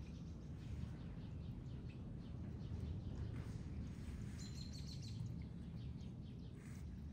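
Soft scraping strokes of a small kitchen knife peeling the skin off a boiled carrot, over a steady low outdoor background rumble. A bird chirps briefly about four and a half seconds in.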